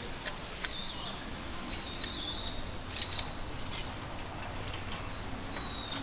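Campfire being tended with metal tongs: a few sharp clicks and knocks as the burning wood is moved, the loudest about three seconds in. Behind them a thin high whistle recurs every second or two, each ending in a short downward slide.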